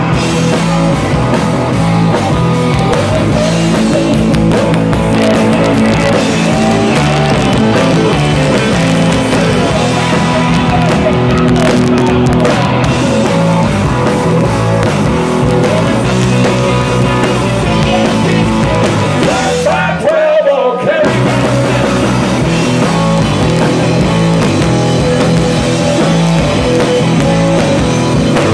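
Live rock band playing loud: electric guitars, electric bass and a drum kit. About twenty seconds in, the band stops for about a second, leaving one wavering note that falls in pitch, then comes back in.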